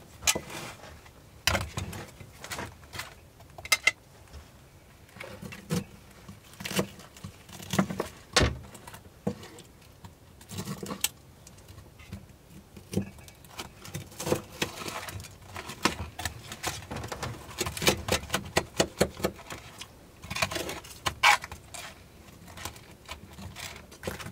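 Forks and a knife clinking and scraping against a frying pan and a metal bowl as two people eat, in irregular taps and scrapes.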